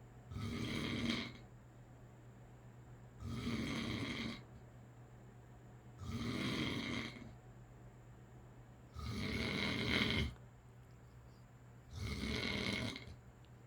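A man snoring in his sleep: five snores, one about every three seconds, each lasting about a second.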